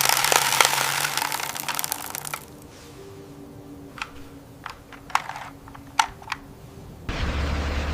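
A dense run of small clicks and gritty rustling, then several separate sharp clicks. A low steady hum starts near the end.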